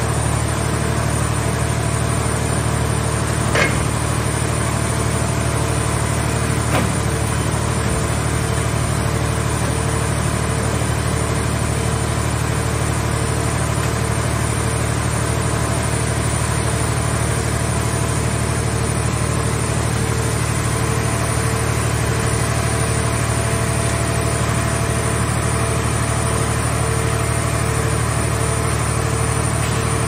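Mobile scrap car baler's power unit running steadily as its hydraulic grapple crane swings a crushed car body, a constant low hum. Two brief knocks sound about 3.5 and 7 seconds in.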